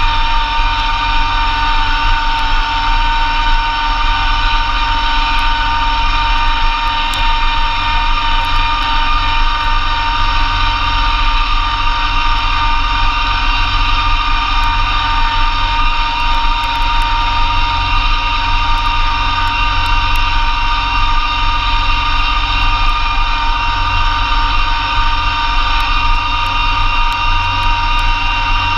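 Massey Ferguson GC2300 compact tractor's three-cylinder diesel running steadily under load while driving a Blizzard B48 PTO snowblower. A low engine drone sits under a steady high whine, with no break or change in speed.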